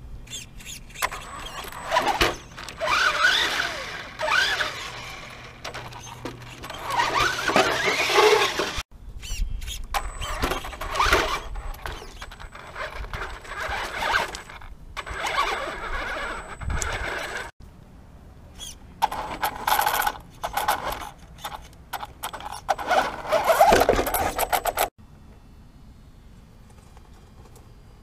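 Traxxas Stampede 4x4 VXL's brushless electric motor and drivetrain whining in short throttle bursts, the pitch rising and falling as the RC truck revs, with abrupt cuts between clips and a quieter stretch near the end.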